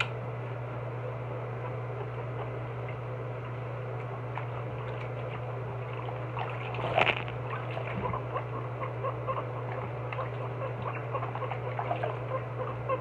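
Water splashing in a sink as a guinea pig is washed by hand, with short squeaks from the guinea pig, one louder about seven seconds in. A steady low hum runs underneath.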